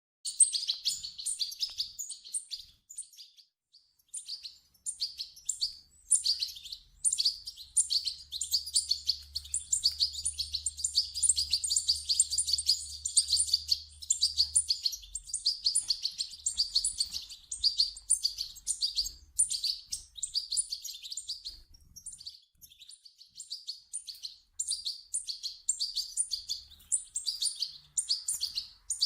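European goldfinch chicks calling: a rapid, nearly continuous stream of high chirps, with brief pauses about four seconds in and again past the twenty-second mark.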